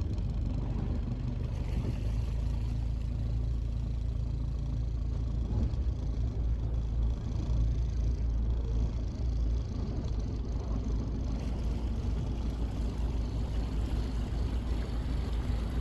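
Small powerboat under way: its engine running steadily under a heavy low rumble of wind on the microphone, with water noise from the hull.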